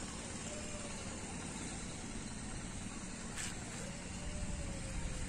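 Steady outdoor background noise, a low rumble with a hiss over it, and a faint click about three and a half seconds in.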